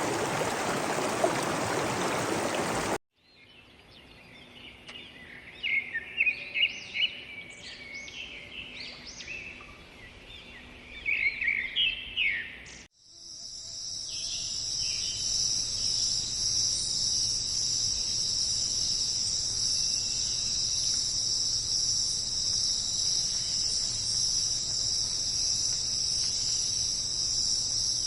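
Rainforest sounds in three cut-together parts: rushing stream water for the first three seconds, then a bird giving short chirping calls over quiet forest ambience, then from about thirteen seconds a loud, steady, high-pitched chorus of crickets or similar insects.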